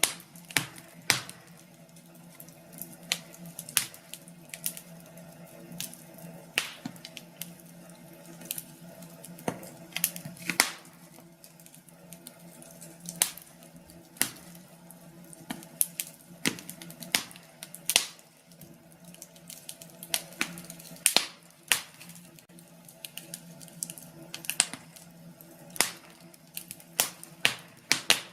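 Wood fire crackling in a fireplace: irregular sharp pops and snaps, sometimes several close together, over a soft steady background sound.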